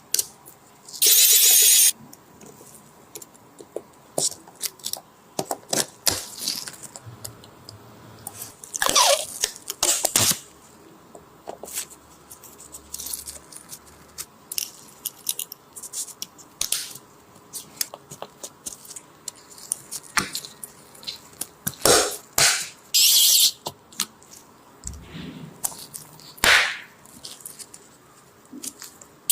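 Small clicks and taps of hand tools working on a mobile phone during a display repair, broken by several short, loud scratchy bursts: one lasting about a second near the start, others near the middle and toward the end.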